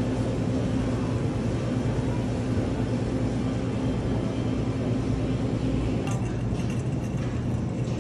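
Steady low hum of supermarket refrigeration and air handling, with a few faint clinks about six seconds in.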